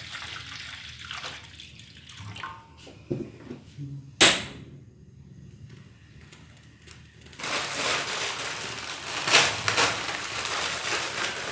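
Water being poured into a cooking pot, then a single sharp click about four seconds in, followed after a quiet gap by a louder, steady rushing hiss that runs on to the end.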